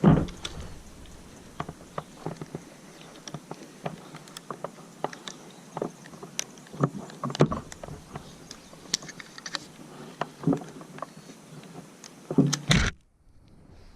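Irregular clicks, knocks and rubbing right at a helmet-mounted camera as a tree climber moves and handles his gear. There is a loud knock at the start and a burst of louder knocks near the end, and then the sound drops away.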